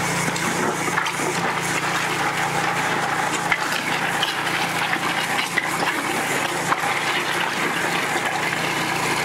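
Pressure washer running a venturi mud sucker attachment, its suction tube drawing water, sludge and small stones up out of a bucket: a steady rushing hiss of water with scattered clicks of gravel rattling through the tube, over a steady low hum.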